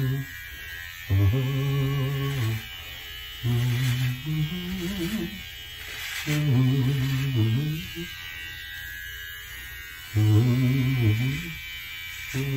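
A man humming a wordless tune in short held phrases, about five of them with pauses between, over the steady buzz of a handheld electric shaver being run over his scalp.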